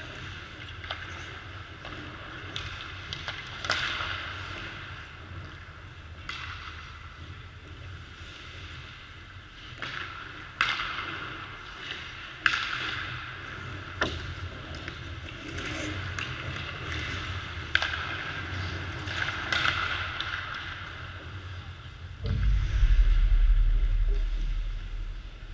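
Ice hockey practice: skate blades scraping and carving on the ice in swelling hisses, with sharp clacks of sticks striking pucks several times. Near the end a deep rumble lasting about three seconds is the loudest sound.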